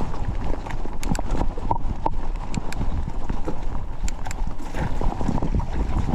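Mountain bike rattling and clattering over rough wet ground, with irregular knocks and clicks over a steady low rumble of wind buffeting the action camera's microphone.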